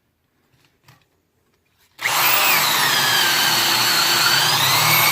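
Near silence with a few faint ticks, then about two seconds in a corded electric drill starts abruptly and runs steadily with a high whine, turning a 3/4-inch auger bit in a pine 2x4.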